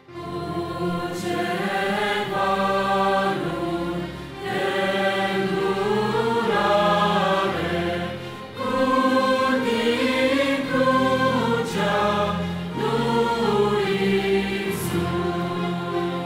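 Mixed youth choir singing a Romanian hymn in parts, entering right at the start, over a sustained instrumental accompaniment.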